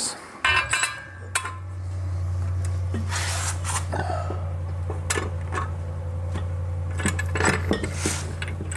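Metal clinks and knocks of washers, lag bolts and a steel hose reel being handled and fitted against a wall, over a steady low hum that starts about a second in.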